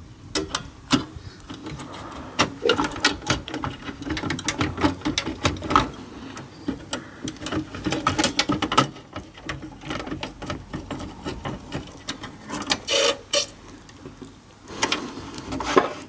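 Cables and plastic connectors being handled and unplugged inside an HP ProLiant MicroServer's metal case: an irregular run of small clicks and knocks over the rubbing of braided cable sleeving.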